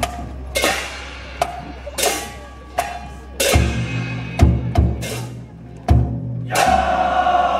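Chinese-style festival percussion accompanying a ship float: irregular drum and gong strikes that ring on after each hit, with a run of deep drum beats in the middle. Near the end, voices shout together in a long held call.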